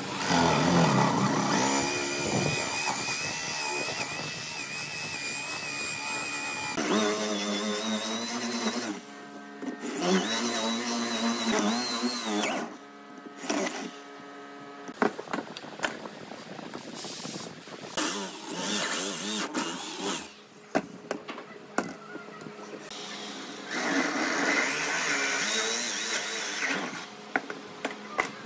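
Handheld electric drill with a Forstner bit boring into wood. It runs in a long steady whine for the first several seconds and in two shorter runs after that. Then come scattered knocks and clicks of handling, and another run of drilling noise near the end.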